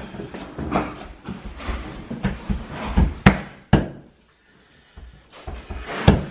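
Herringbone laminate flooring planks being fitted and knocked together by hand on fibreboard underlay: a series of hard knocks and clacks, the loudest between about three and four seconds in, then a pause and one more near the end.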